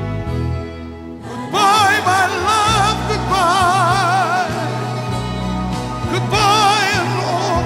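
Live band playing a slow pop ballad between sung lines: steady bass and backing, with a lead melody with wide vibrato coming in about a second and a half in and returning near the end.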